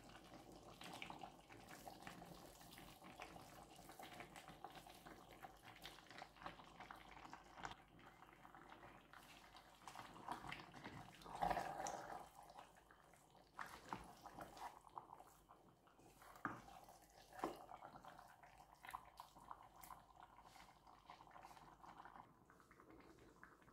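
Faint scraping and rustling as a wooden spatula stirs chopped spinach and pumpkin leaves into a stew in a stainless steel pot. Scattered soft clicks run throughout, with one louder stroke about halfway through.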